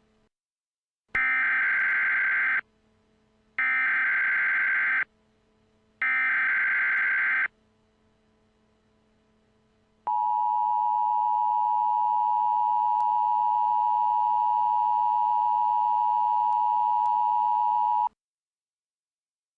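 Emergency Alert System header: three bursts of digital SAME data tones, each about a second and a half long, then a steady attention tone held for about eight seconds that cuts off abruptly. This tone sequence signals the start of a new alert.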